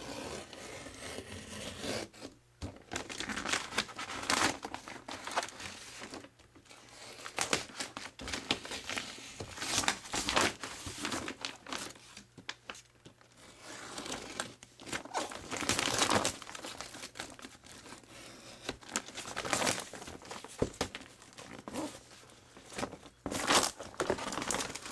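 Brown paper wrapping and clear packing tape on a box being cut and torn open, crinkling and ripping in irregular spells with a few short pauses.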